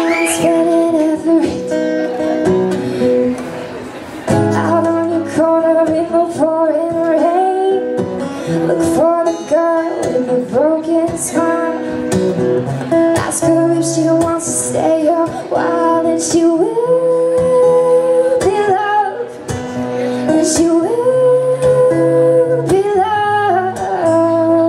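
A woman singing a song while playing an acoustic guitar.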